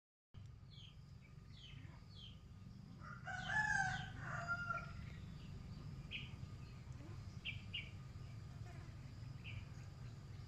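Birds calling: one loud call with several stacked pitches, about a second long, comes a little over three seconds in, followed by scattered short high chirps over a steady low rumble. The sound drops out briefly at the very start.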